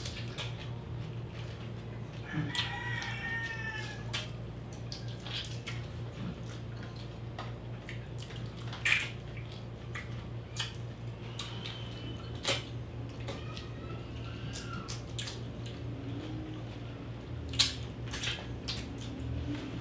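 Close-miked eating of ripe mango: scattered wet mouth clicks, smacks and slurps as the flesh is bitten and sucked off the slices, over a steady low electrical hum.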